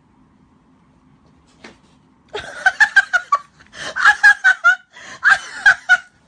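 A person laughing, high-pitched and giggly, in three short bouts of rapid bursts that start about two seconds in.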